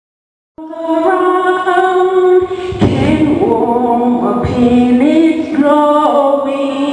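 A woman singing solo into a microphone, in long held notes that step up and down in pitch; she starts about half a second in, after silence.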